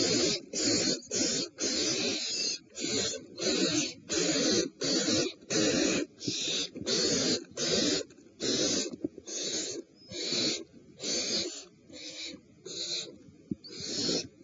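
Owl nestlings giving rhythmic hissing food-begging calls, about two a second, slowing and fading after about eight seconds.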